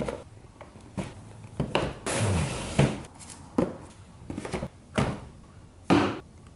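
Cardboard parts boxes being set down one after another on a white folding table: a string of separate thuds, about eight in six seconds, with a longer scrape of a box sliding across the tabletop about two seconds in.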